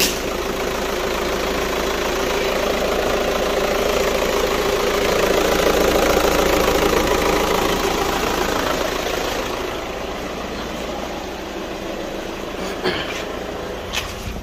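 Skoda Superb TDI diesel engine idling steadily, heard from over the open engine bay. It grows quieter after about ten seconds, and two short taps sound near the end.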